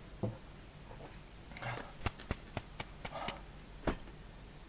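Quiet handling noise: a scattering of light taps and clicks, with two brief rustles.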